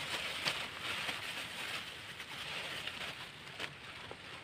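Light rain falling on a flooded pool, a steady hiss with a few sharp drip clicks.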